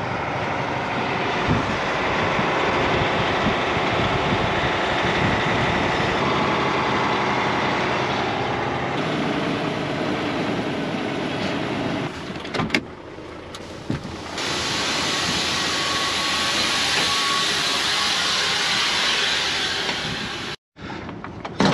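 Vehicle driving over paddock tracks, heard from inside the cab as a steady run of engine and road noise. A few sharp knocks come about two-thirds of the way through, followed by several seconds of louder, steady hiss.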